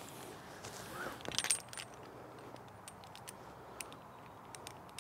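Light metal clinks of climbing hardware (karabiners and rope devices on the harness) as the climbing rope is handled, with a cluster of clinks about a second and a half in, then scattered small ticks.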